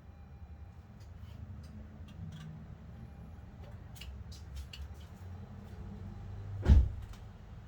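A steady low rumble with a few light clicks, then a single loud thump about seven seconds in.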